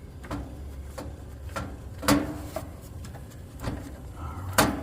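Scattered metal clicks and knocks of a tool working the suction-line service (king) valve on a Goodman condenser, turned counterclockwise to open it and release the refrigerant charge into the system. Several irregular clicks, the loudest about two seconds in and near the end, over a low steady hum.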